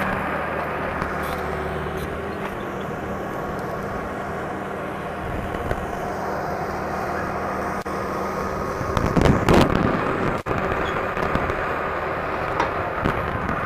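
Crawler bulldozer with a 9-foot blade running while it pushes dirt to cut a swale: a steady engine drone that weakens after about five seconds, with a louder, rough surge of noise about nine seconds in.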